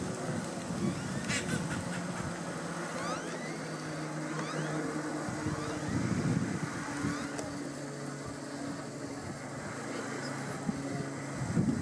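A motor engine running steadily with a low hum; its pitch shifts about six seconds in.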